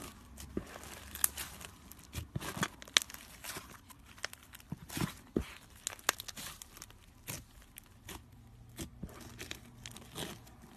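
Crunchy floam slime being poked and squished by hand, its foam beads giving irregular crackles and sharp pops.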